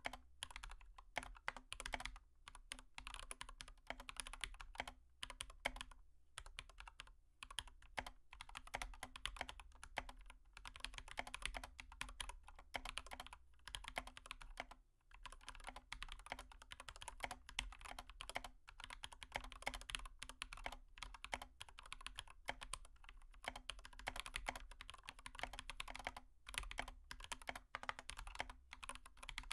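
Fast, irregular clicking and tapping with hardly a break, over a faint steady hum.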